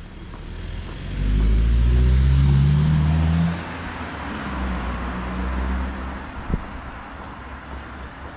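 A car passes close by, its engine note rising as it accelerates, followed by a quieter engine sound for a few seconds and a single sharp click near the end.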